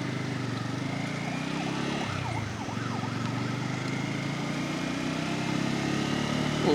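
Bajaj Pulsar N250's single-cylinder engine idling steadily while the bike stands still, with a brief dip about two and a half seconds in.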